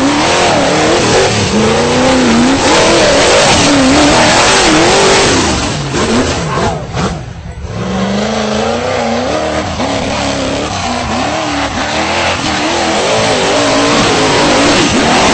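V8 engine of a tube-frame off-road buggy revving hard, its pitch rising and falling over and over under full throttle. The engine drops off briefly about seven seconds in, then picks up again.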